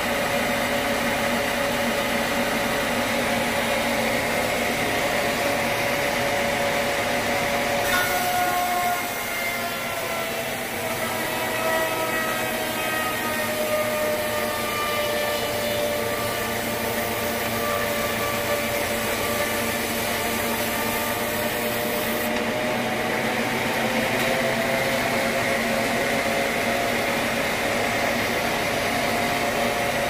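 Band sawmill running and cutting through an acacia log: a steady machine whine with several held tones. Its pitch sags slowly through the middle of the cut and climbs back near the end, with an abrupt change in the sound about eight seconds in.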